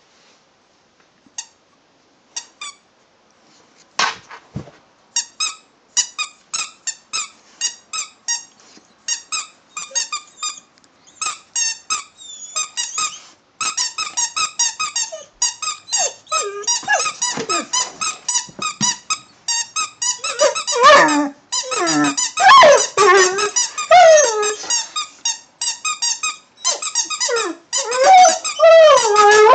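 A rubber squeaky toy squeaked over and over in short, quick squeaks, joined about halfway through by a husky's pitched vocalising that bends up and down and grows loud near the end.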